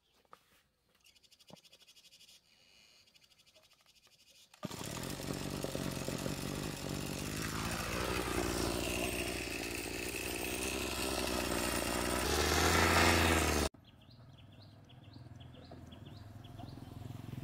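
Small engine running steadily for about nine seconds, growing louder near the end, then cutting off suddenly.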